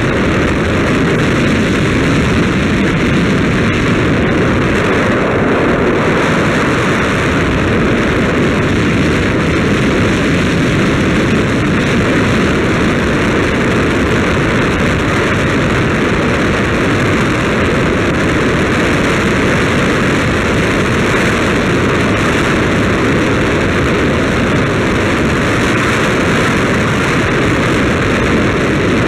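Steady rushing roar of wind over the microphone and wheels rolling on asphalt while riding along a paved road, loud and even throughout with no engine note or rhythm.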